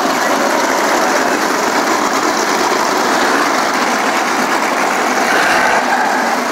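A pack of winged sprint cars running together around a dirt oval: a loud, steady blur of many racing engines.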